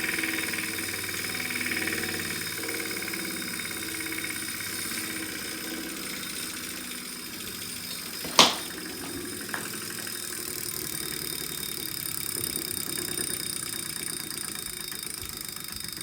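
Wahoo Kickr bike trainer running with a steady mechanical noise, an abnormal noise that points to a fault in the trainer. A sharp, loud click comes about eight seconds in, and a fainter one a second later.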